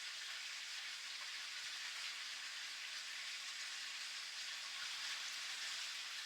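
Steady patter of rain drops.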